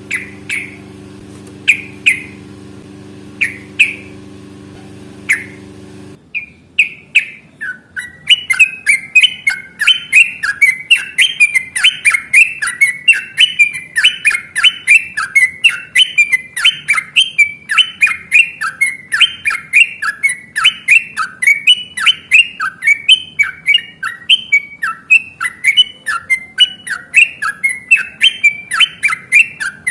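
Yellow-vented bulbul (trucukan) calling: for about six seconds, single calls roughly every two seconds over a steady low hum. Then the hum stops abruptly and a long, fast, continuous chattering song ('ropel') runs on, phrase after phrase.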